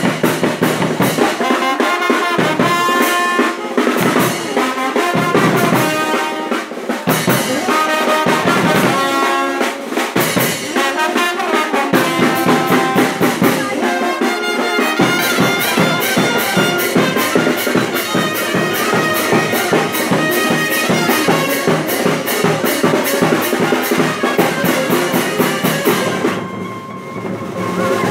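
Brass band playing, trumpets and trombones over drums, with a quick, steady drumbeat coming in about halfway.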